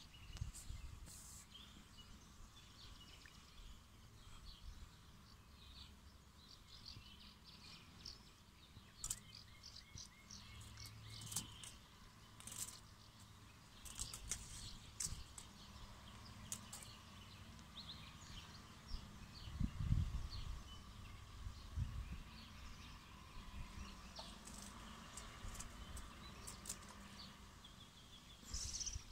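Quiet outdoor ambience with faint, scattered bird chirps and a few soft low bumps, the strongest about two-thirds of the way in.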